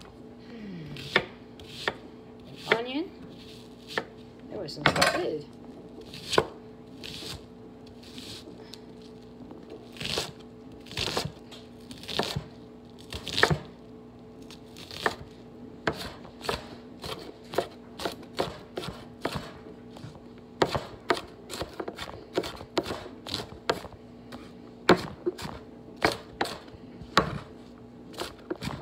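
Chef's knife chopping an onion on a wooden cutting board: sharp, irregular knocks of the blade on the board, coming faster in the second half.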